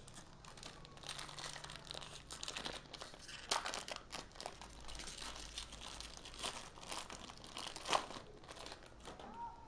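Foil booster-pack wrapper of Yu-Gi-Oh cards crinkling as it is handled and opened, an irregular crackle with a few sharper crunches, about three and a half and eight seconds in.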